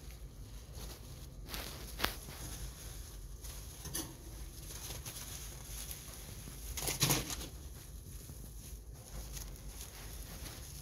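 Scattered rustling of dry hay and tissue paper as hay is gathered by hand, a few separate rustles with the loudest about seven seconds in, over a low steady hum.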